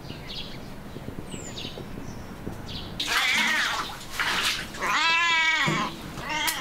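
A domestic cat meowing four times in the second half, the third call the longest.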